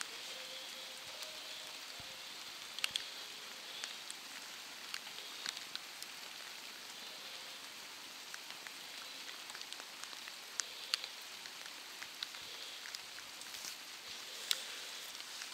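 Steady rain falling: an even hiss with scattered sharp ticks of single drops landing close by at irregular moments.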